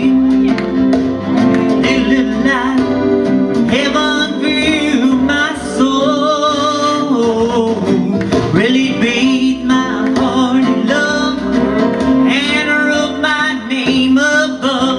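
Live gospel song: a man singing into a microphone with wavering held notes, over keyboard accompaniment.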